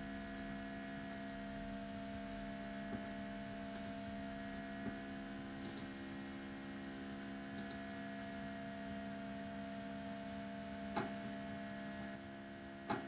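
Steady electrical mains hum made of several fixed tones, with a few faint clicks scattered through it and two sharper clicks near the end.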